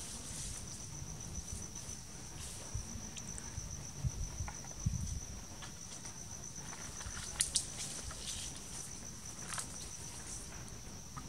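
Insects trilling: a steady, high, rapidly pulsing chirr. Short knocks and rustles of twigs, the loudest about four and five seconds in and a pair of sharp clicks about seven and a half seconds in, come from a baby monkey climbing through the dry branches.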